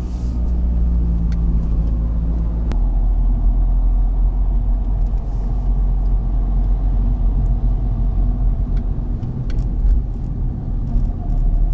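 Car driving along a winding road, heard from inside the cabin: a steady low engine and tyre rumble. About three seconds in there is a click and the rumble shifts slightly.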